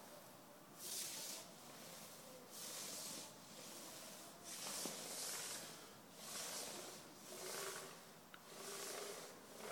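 Long-handled paint roller spreading lacquer over a wooden parquet floor: a faint hissing swish with each stroke, about six strokes at a steady pace.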